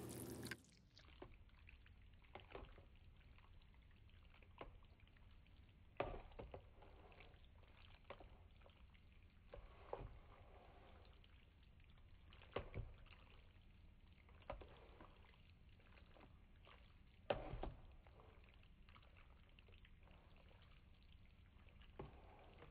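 A fork stirring wet instant ramen noodles in a bowl, with a short click every few seconds as the fork knocks the bowl, over a faint steady background.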